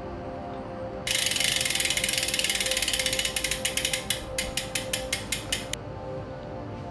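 Bicycle freewheel ratchet clicking as the cranks are spun: a fast buzz of pawl clicks that slows into separate ticks and dies out.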